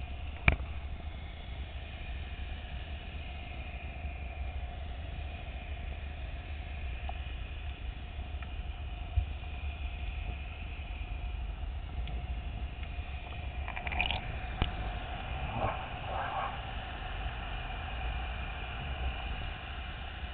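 Underwater sound picked up through a camera housing beside an oil platform: a steady low rumble with a constant hum, the machinery of the platform carrying through the water. A sharp click comes about half a second in, and a few short knocks and squeaks come around two thirds of the way through.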